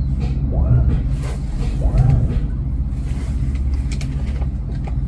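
Houseboat engine running at low speed under manoeuvring, a steady low hum heard from the helm cabin. A couple of short rising-and-falling squeals sound over it, about a second and two seconds in.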